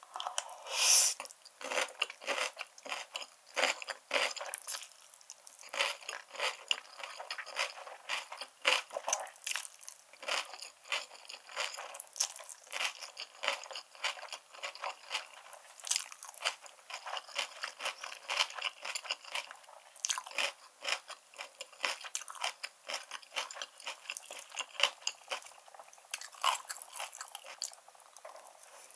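Close-miked chewing of black-bean noodles topped with grilled beef and enoki mushrooms: a dense, continuous run of quick wet crunches and clicks.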